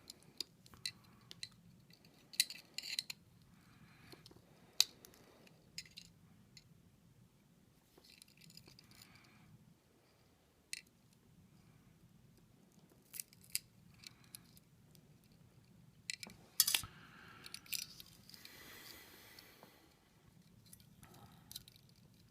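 Sporadic small metallic clicks, clinks and short scrapes of tools and tiny parts as an iPod's small hard drive is pried and taken apart.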